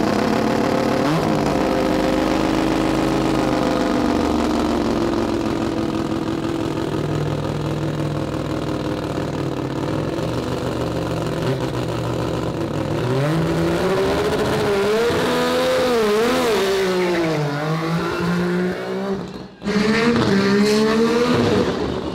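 Mazda RX-7's rotary engine running hard under a launch and full-throttle acceleration. The engine note holds fairly steady for about ten seconds, then rises and falls in pitch several times through the gears, with a brief break about nineteen seconds in before it climbs again.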